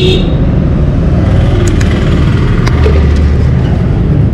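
Steady low rumble of road traffic going by, with a few light clicks, like a plastic oil-bottle cap and seal being opened by hand.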